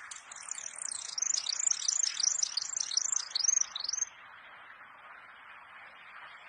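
A songbird singing a fast series of high, swooping notes, about three or four a second, that stops abruptly about four seconds in, over a steady background hiss.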